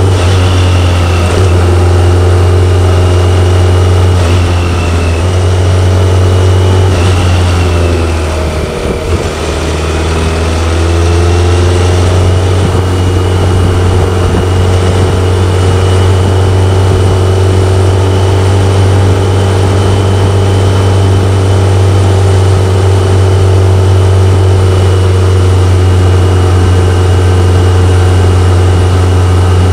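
BMW K1100LT's inline-four engine running steadily under way. About eight seconds in, the revs fall and then climb back within a couple of seconds.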